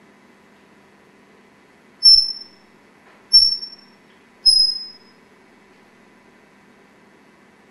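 African grey parrot whistling three short, high notes, evenly spaced a little over a second apart, each starting sharply and fading quickly.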